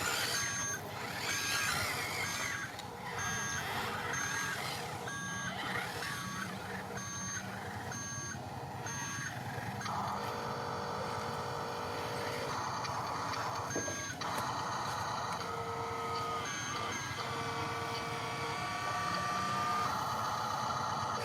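Electronic reversing beeper of a Huina RC construction model's sound module, beeping about once a second for the first half, then giving way to steadier electronic tones.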